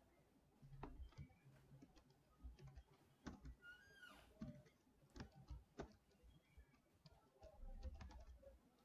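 Faint computer keyboard typing: a dozen or so scattered, irregular keystrokes.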